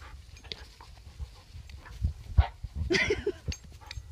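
A puppy gives a short, high, pulsing yelp about three seconds in, over an uneven low rumble.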